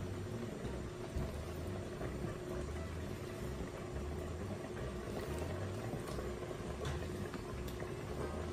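Turkey chili being ladled from a pot into a ceramic bowl, soft and wet, over a steady low hum.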